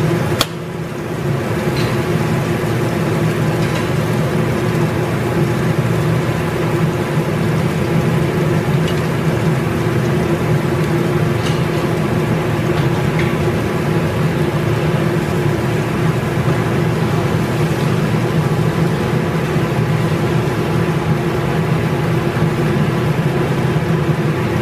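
Steady low hum of a kitchen exhaust fan running over the stove. A single sharp click comes about half a second in.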